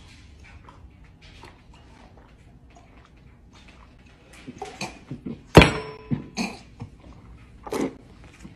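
Someone drinking from a glass: quiet at first, then a few short gulping sounds. About halfway through comes a loud clunk with a brief ring as the glass is set down on a counter, followed by a few short mouth sounds.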